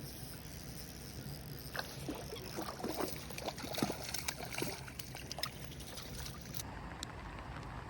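Irregular splashing and sloshing of water, starting about two seconds in over a steady background hiss.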